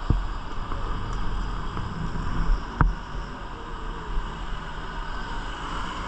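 Honda CG Titan 160 single-cylinder motorcycle engine running steadily, with wind noise on the microphone and two sharp knocks, one at the start and one nearly three seconds in.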